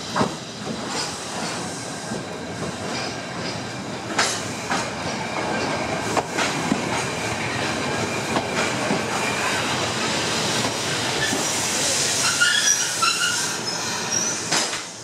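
A Fukui Railway 770-series two-car articulated tram runs along the platform at low speed with steady wheel and rail noise and a few sharp clicks over rail joints. Near the end the wheels squeal in high, wavering tones.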